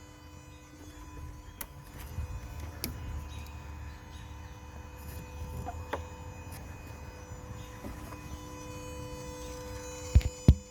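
Steady electrical hum and buzz from below the engine of a Scion iA with the ignition on, a sign of the car's no-start fault; the owner wonders whether it comes from the starter, a grounding fault or the alternator. Two loud knocks near the end.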